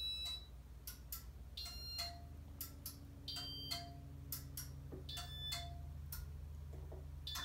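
About five short, high electronic beeps at intervals of roughly one and a half to two seconds, with a few clicks, over the low steady hum of a Casablanca Meridian ceiling fan's motor. The hum grows fuller about two seconds in as the motor is switched into reverse on speed 1.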